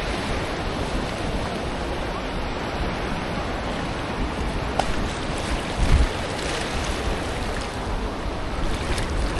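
Ocean surf washing steadily, with wind on the microphone and a brief low bump about six seconds in.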